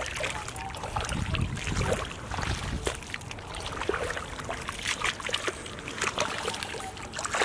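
Hands digging and scooping in shallow muddy water, with irregular splashing and sloshing of water and wet mud.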